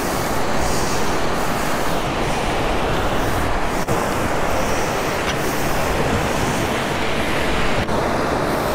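Steady roar of wind on the microphone mixed with surf washing along the beach, with two brief clicks about four and eight seconds in.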